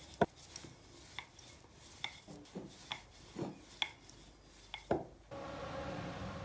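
Wooden rolling pin rolling out shortcrust pastry dough on a floured countertop, with irregular knocks and taps as the pin meets the counter, the sharpest one just at the start. After about five seconds the knocks stop and a steady hum with a faint tone takes over.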